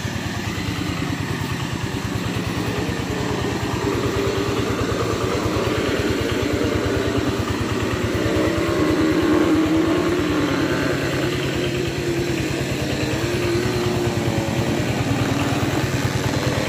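A small engine running steadily with an even firing rhythm. A faint wavering tone rises over it in the middle.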